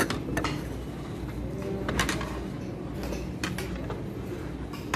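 Spoon and fork clinking and scraping against plates while eating, a few sharp clicks with the loudest about two seconds in, over steady room noise.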